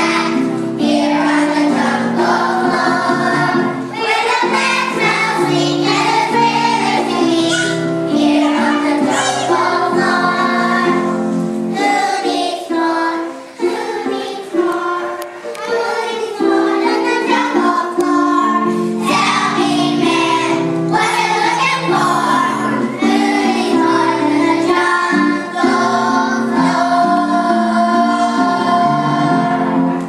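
Children's choir singing a song together over an instrumental accompaniment.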